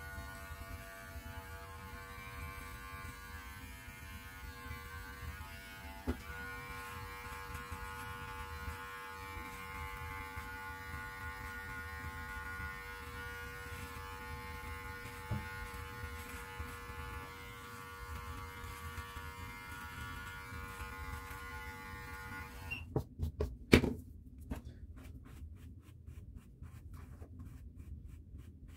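Electric beard clippers running with a steady buzzing hum as they trim along the neck under the beard. They cut off about 23 seconds in, followed by a couple of sharp clacks and then a bristle brush stroking repeatedly through the beard.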